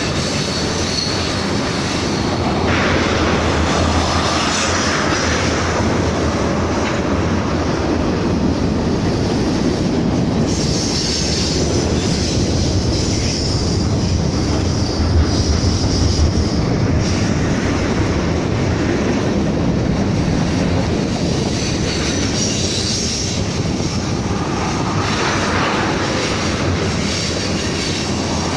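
BNSF freight train cars rolling past close by, a steady rumble of steel wheels on rail, with a high wheel squeal that comes and goes, strongest around the middle and again near the end.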